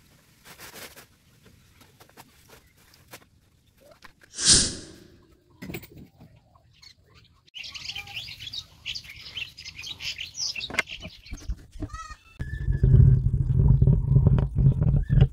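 Small birds chirping, a run of quick high chirps in the middle, with a short loud hiss about four seconds in. Over the last three seconds a louder low sound with a steady pitch takes over.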